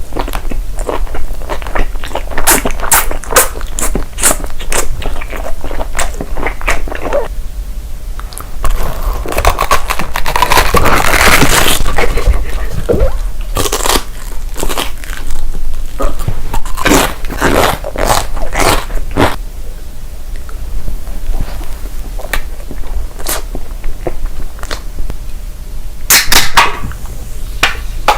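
Close-miked crunching and chewing of crisp food: a run of sharp crunchy bites, thickening into a dense stretch of crunching about a third of the way in.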